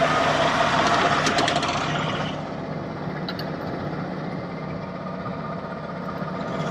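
1974 John Deere 6600 combine's engine idling steadily. In the first two seconds there is a louder noisy stretch with a few sharp metal clicks.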